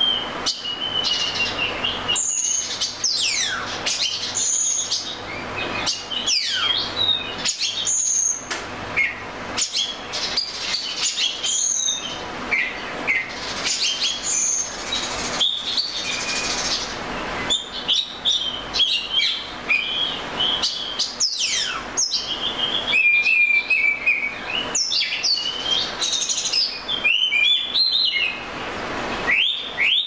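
Male oriental magpie robin singing a long, varied song of clear whistles, sweeping slurred notes and short high chirps, with hardly a pause.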